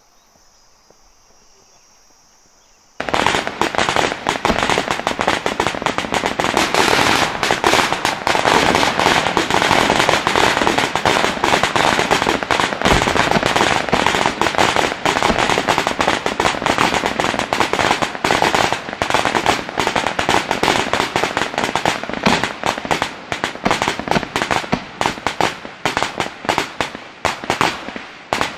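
Sustained small-arms gunfire: many rifles firing rapidly at once in a dense, continuous crackle of shots. It starts suddenly about three seconds in and breaks up into more separate shots near the end.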